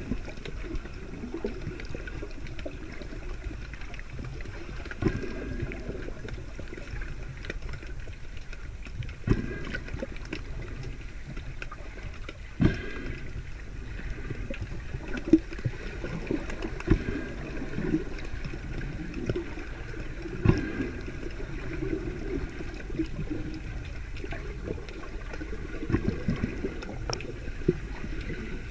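Muffled underwater water noise heard through a submerged camera's waterproof housing: a steady low rumble and sloshing, with a sharp knock every few seconds.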